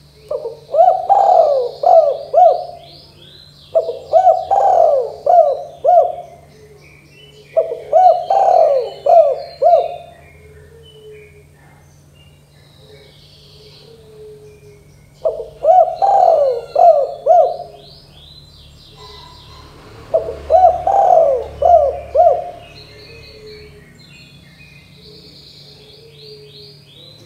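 Spotted dove (tekukur) cooing: five calls, each a run of about four quick coos, with a longer pause between the third and fourth. Fainter high-pitched chirping runs behind.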